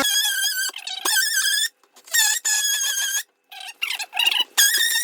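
Oscillating multi-tool cutting, a high-pitched wavering squeal with a quickly varying pitch, broken into short runs that stop and restart several times as the blade works into the cut.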